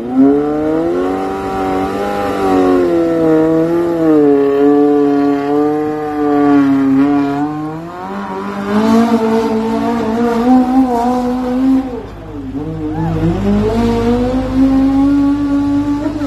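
Motorcycle-engined mini modified pulling tractor running at high revs under load as it drags a weight-transfer sled. The engine pitch wavers throughout, sags about twelve seconds in, then climbs back up.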